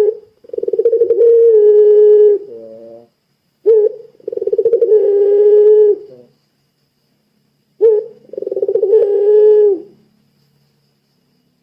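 Puter pelung dove cooing: three long calls, each a short opening note followed by a drawn-out, throbbing coo of about two seconds that drops in pitch at the end.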